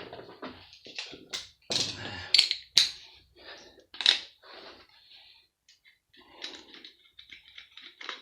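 Irregular metallic clicks and clinks of a hand tool undoing bolts on a cement mixer's electric motor, with a few sharper knocks in the first half.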